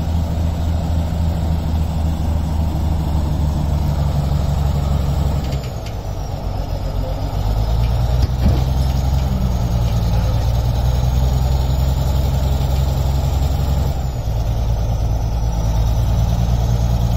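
Large crawler bulldozer's diesel engine running heavily. Its note drops and then picks up again twice, about five and a half seconds in and again near fourteen seconds.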